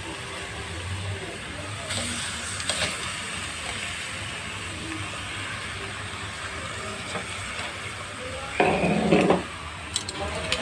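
Frozen pork chops and beef tapa sizzling steadily in a hot stainless electric skillet with no oil. A few small clicks come about two seconds in, and a short, louder sound breaks in near the end.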